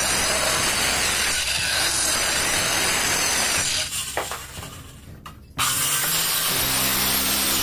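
Handheld electric cutter machine sawing slots into 18 mm plywood, a loud steady cutting noise. About four seconds in it dies away for a couple of seconds as the cut ends, then starts again abruptly for the next cut.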